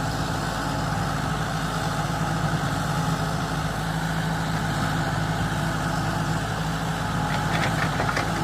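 Backhoe engine running steadily at idle, with a few light clicks near the end.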